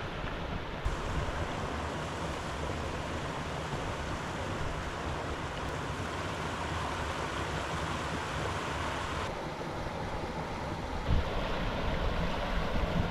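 River water rushing steadily, with wind buffeting the microphone in low rumbles that grow stronger near the end.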